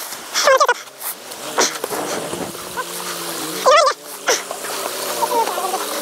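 Men grunting and calling out in short bursts of effort as they push and pull a heavy adventure motorbike up a steep wet rock step. The two loudest grunts come about half a second in and near four seconds.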